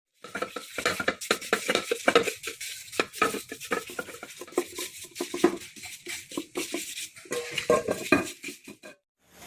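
Quick, irregular clinking and scraping of metal against metal, like tools and small engine parts being handled and worked.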